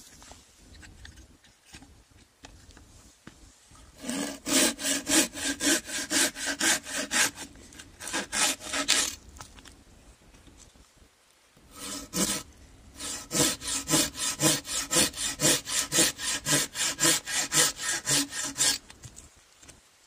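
Curved-blade folding pruning saw cutting through a thin hand-held stick in quick back-and-forth strokes, about three a second. It starts about four seconds in, stops for about three seconds, then saws again for about six seconds.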